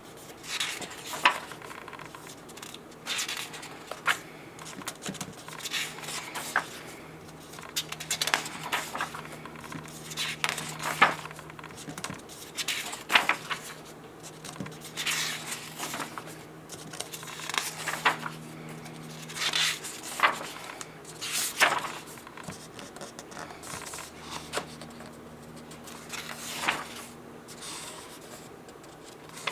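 Pages of a paperback workbook being turned and handled: irregular brief paper rustles and swishes, about one every second or two.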